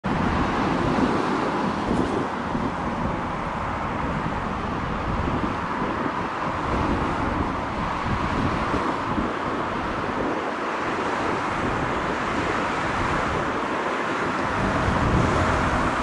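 Steady road-traffic noise, an even roar with no distinct pass-by or other event standing out.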